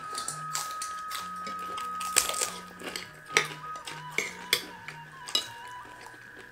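Spoons clinking against plates and bowls during a meal, several sharp clinks, over background music.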